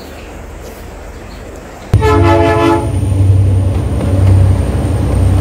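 Diesel freight locomotive sounding a short horn blast of under a second, about two seconds in, then its engine running loud as the lead locomotives pass close by.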